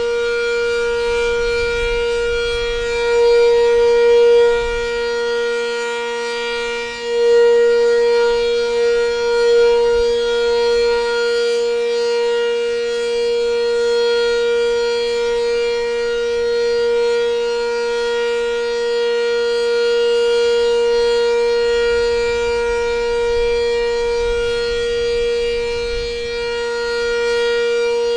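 Sentry 10V rotating outdoor warning siren sounding a steady alert tone: one unbroken pitch with a strong buzzy edge of overtones. It swells and eases slightly in loudness as the rotating head sweeps past.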